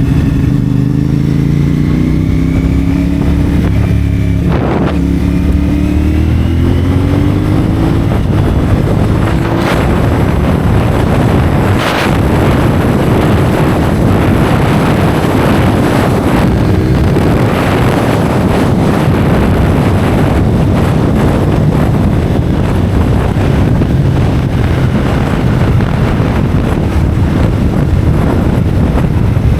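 CFMoto 450SR parallel-twin motorcycle engine through a Yoshimura AT2 slip-on exhaust, revving up and down through the gears, then wind rushing over the rider's camera drowns the engine as the bike holds speed. A few sharp clicks come through along the way.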